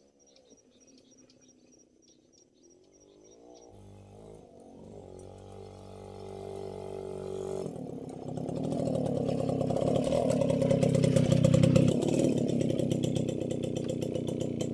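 Small step-through motorcycle engine approaching along a dirt track, growing steadily louder as it comes close, then easing as the bike comes to a stop near the end. Crickets chirp faintly before the engine comes in.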